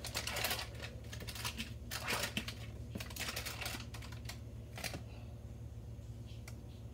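Crinkling and crackling of foil and plastic wound-dressing material being handled, in bursts through the first five seconds, then quieter.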